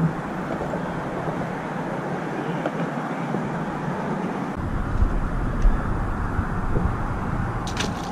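Steady outdoor rushing noise with wind buffeting the microphone, the low rumble of the gusts dropping away and then coming back about halfway through with a couple of thumps.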